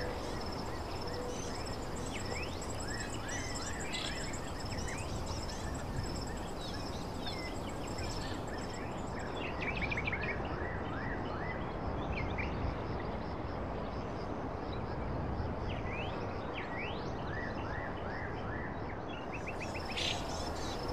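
Outdoor background noise, steady throughout, with small birds chirping many short, quick notes.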